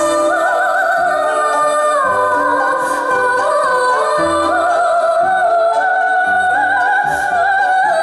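Live performance of a female soprano singing an operatic melody with wide vibrato, accompanied by grand piano and orchestral strings.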